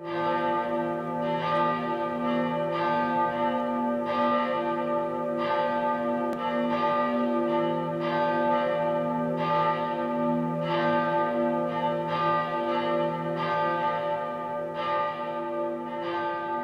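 A peal of several church bells ringing together, a new stroke coming about every second or less, each bell's tone ringing on under the next.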